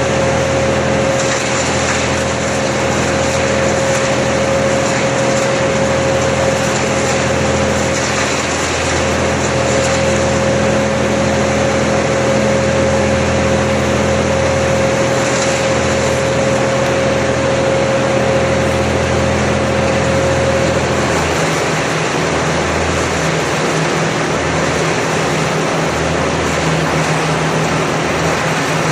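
Machinery engine running steadily, with a steady whine over it that stops about 21 seconds in, where the engine note shifts.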